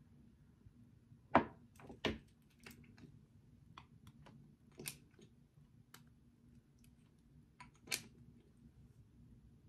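Small clicks and taps of a makeup tube and its wand applicator being handled, with a few louder knocks among many faint ticks.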